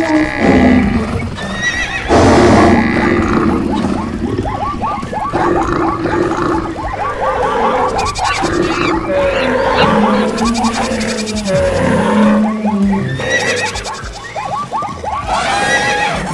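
Stampede sound effect: many animal calls overlapping one another, layered over music.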